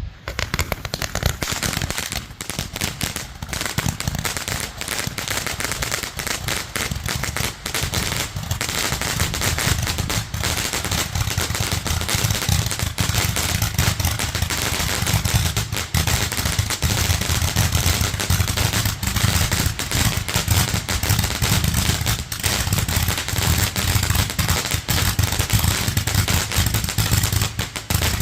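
A 660-shot barrage candle firing: it starts suddenly and goes on as a rapid, unbroken stream of sharp shots, many each second.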